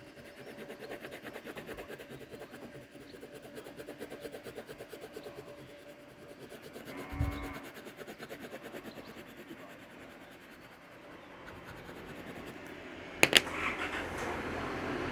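Colored pencil rubbed rapidly back and forth on paper, shading with a steady scratchy rhythm of quick strokes. A short low tonal sound comes about seven seconds in, and near the end there are two sharp clicks, followed by a rising rumbling noise.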